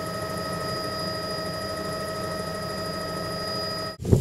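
Helicopter cabin noise in flight: a steady low rumble under a steady high whine, ending abruptly near the end.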